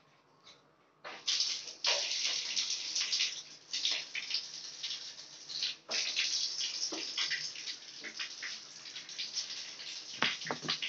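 Water splashing and pouring in a plastic bath basin as a toddler's face and hair are washed by hand, starting about a second in and going on irregularly with many splashes.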